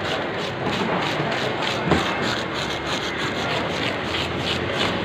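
Grouper being scaled with a hand fish scaler on a wooden chopping block: quick repeated scraping strokes, about five a second, over a steady background noise, with one knock about two seconds in.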